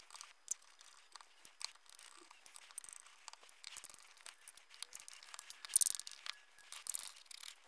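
Hand screwdriver backing small self-tapping screws out of the plastic housing of a Makita DTD156 impact driver: faint scattered clicks, creaks and scrapes, with a louder crackle about six seconds in.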